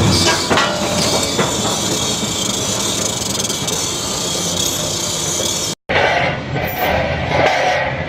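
Industrial twin-shaft shredder running with a loud, steady grinding hiss as it chews material and shredded fragments pour out. After a brief break about six seconds in, irregular crunching starts as the hooked cutters bite into a block of wood.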